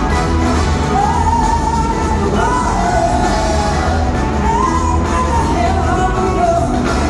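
Live blues-rock band with horns and organ playing, heard from high in a theatre balcony: a woman's lead vocal in bending, gliding phrases over a dense, heavy low end of bass and drums.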